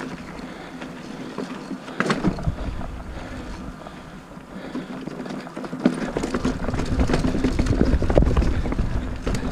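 Mountain bike being ridden on a dirt trail, picked up by a GoPro: tyre and wind rumble with rattles, clicks and a sharp knock about two seconds in and another near the end. The rumble grows heavier over the last few seconds.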